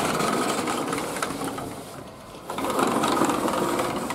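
A sliding glass door rattling along its track as it is pushed open, in two runs: one for about two seconds, then after a short dip another for about a second and a half.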